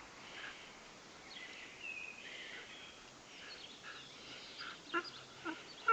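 German Shepherd puppy making short, pitched play growls or yelps while tugging a rope toy, three of them in the last second or so.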